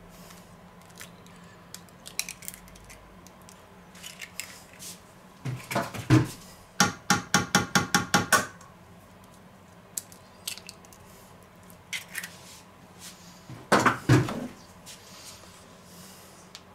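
Knocks and light taps on a stainless-steel mixing bowl as eggs are cracked into crumbly dough: a few knocks about five seconds in, then a quick run of about ten taps, and another short clatter later on.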